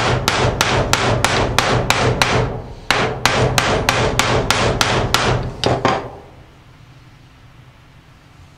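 Ball-peen hammer beating rapidly on an old bearing used as a driver, metal on metal at about four to five blows a second, driving a new wheel bearing down into an ATV's aluminium rear carrier hub housing. The blows pause briefly about two and a half seconds in, resume in a second run, and stop about six seconds in.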